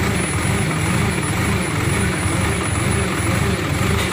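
Diesel engine of a hydra mobile crane running steadily under load, driving the hydraulics as the boom lifts a heavy load, with a fast even low throb.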